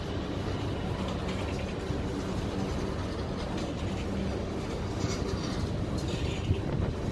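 Freight train of tank cars rolling past: a steady rumble of steel wheels on rail, with a brief high squeal about five to six seconds in.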